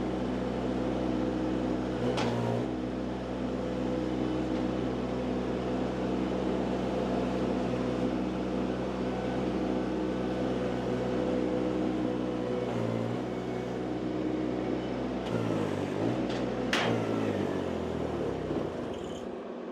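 Mini skid steer's engine running steadily, its pitch shifting briefly a couple of times, with a couple of knocks. Toward the end the engine pitch falls and it winds down as it is shut off.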